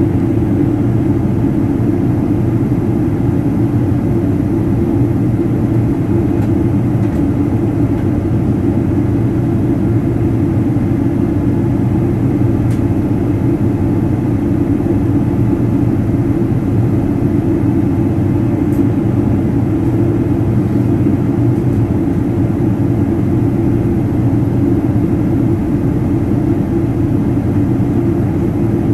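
Steady in-cabin noise of a Boeing 777-200ER in flight, heard from a window seat beside its Rolls-Royce Trent 800-series engine: a loud, even, low rumble of engine and airflow.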